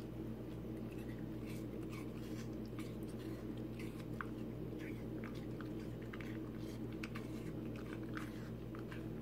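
Husky-type dog chewing a small piece of food: scattered short crunching clicks, over a steady low hum.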